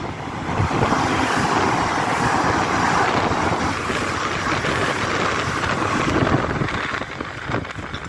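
Diesel multiple-unit passenger train running through the station at speed without stopping: a loud, steady rush of wheels on rail that builds in the first second, holds, and fades after about seven seconds. Wind buffets the microphone throughout.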